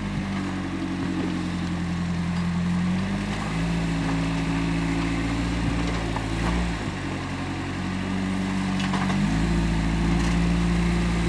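Rock-crawler buggy's engine pulling at low speed over boulders. Its revs hold steady for a few seconds at a time, stepping down and back up about three times.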